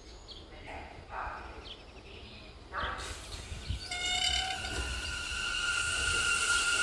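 New York City subway train approaching the platform. Its sound builds from about three seconds in, and high steady tones ring over the rumble as it comes closer.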